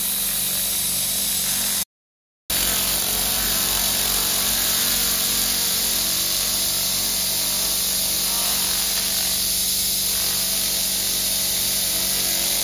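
LightWave handheld laser cleaner hissing steadily as its beam mattes a steel surface. The sound cuts out completely for about half a second around two seconds in, then carries on.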